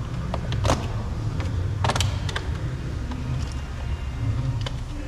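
Flat-head screwdriver prying a plastic trim piece off a car's exterior door handle: a few sharp clicks and snaps, the loudest about two seconds in, over a steady low hum.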